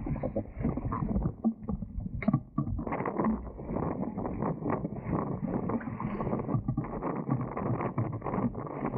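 Water splashing and rushing against the hulls of a Dart 18 sailing catamaran under way, in irregular slaps, with wind rumbling on the microphone.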